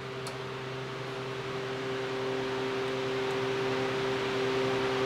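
A steady machine hum with hiss, growing gradually louder.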